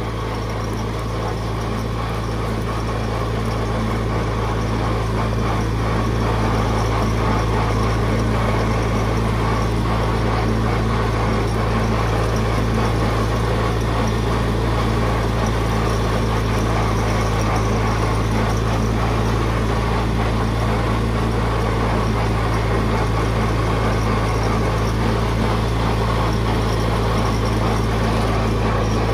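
1960 International Harvester Cub Lo Boy's small four-cylinder flathead engine running steadily as the tractor is driven, mower not engaged. It is being run to warm up and let the carburetor clean up.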